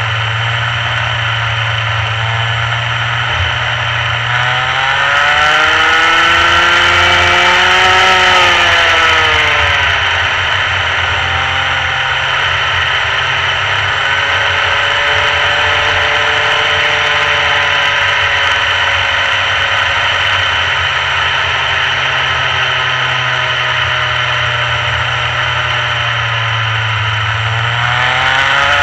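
Rotax Mini Max two-stroke kart engine running on track, its pitch climbing to a peak about eight seconds in, dropping away, holding steady, then climbing again near the end.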